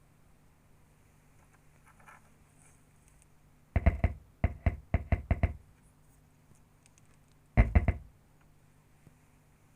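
A quick run of sharp knocks and taps about four seconds in, then another short cluster near the end, over a faint steady low hum.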